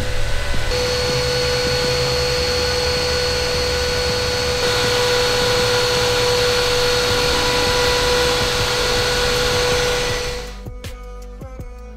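Small electric fan of a soldering smoke-extraction mod running after being plugged in: a steady rush of air with a high whine. It cuts off about ten and a half seconds in and music takes over.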